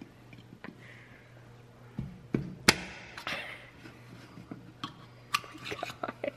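A dropped, shaken can of pop being cracked open: a sharp click about two and a half seconds in, then a short fizzing hiss that fades. Light knocks and handling clicks come before and after it, over a low steady hum.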